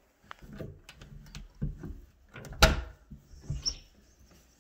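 Interior door being opened by its lever handle: latch clicks, a sharp knock about two and a half seconds in, and a brief high squeak soon after.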